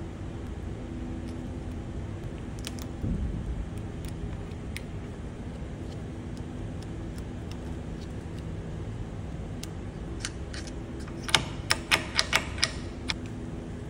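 Light metallic clicks and taps from the pick tool and parts on an Öhlins steering damper being reassembled in a vise. There is a dull thump about three seconds in and a quick run of about six sharp clicks near the end, over a steady low background hum.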